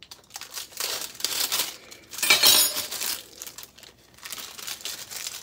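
Crinkling and rustling of packaging being handled, in two main bursts with quieter rustles between.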